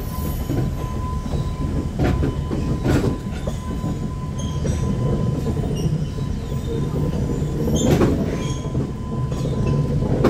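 Alishan Forest Railway cypress-wood passenger train running slowly on its narrow-gauge track, heard from inside the carriage. The wheels on the rail make a steady low rumble, with a few sharp clacks about two and three seconds in and again near eight seconds.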